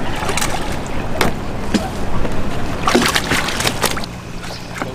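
Hooked tilapia splashing at the pond's surface as it is played in toward the landing net, with a quick run of splashes about three seconds in. Near the end a quieter steady low hum takes over.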